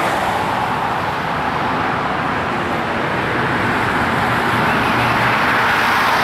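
Steady highway traffic noise as a police cruiser drives up the road and passes close by, its low engine hum coming up near the end.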